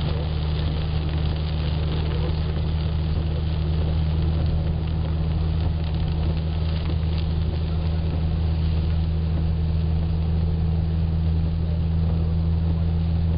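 Taxi driving on a rain-soaked highway, heard from inside the cabin: a steady low drone of engine and road, with a hiss of rain and tyre spray over it.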